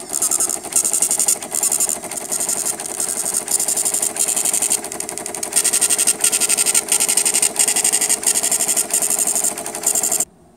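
AccuVote ballot tabulator's built-in tape printer buzzing and rattling as it prints the election zero report, in short runs line after line, stopping abruptly near the end.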